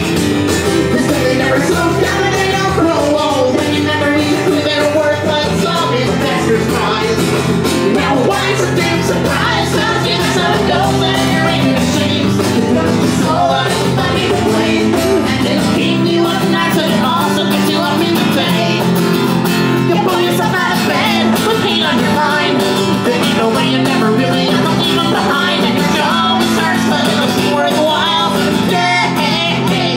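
Live acoustic band music: a banjo and an acoustic guitar strummed together, with singing over them.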